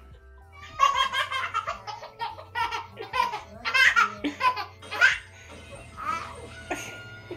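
Baby belly-laughing in a string of short bursts, starting about a second in, over faint background music.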